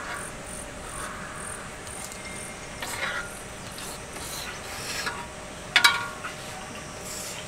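A utensil scraping food around a small pan, with a couple of short clinks, the loudest about six seconds in.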